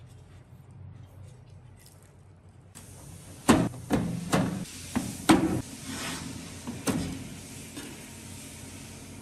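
A series of about six sharp knocks, like tools striking or handling hard parts, over three or four seconds, over a steady hiss that starts near the middle.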